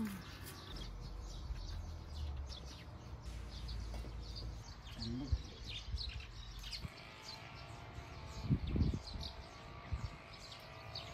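Small birds chirping on and off over a steady low rumble of outdoor air. There is a brief short call about five seconds in, and a few dull thumps a little after eight seconds.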